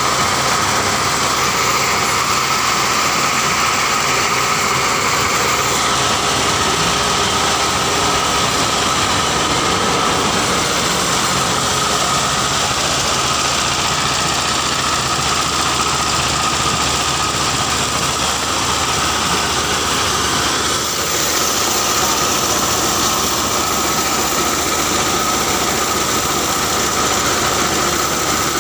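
Diskmill 45 grinding mill with modified steel-toothed blades running at speed and grinding grain: a loud, steady mechanical drone with a constant whine.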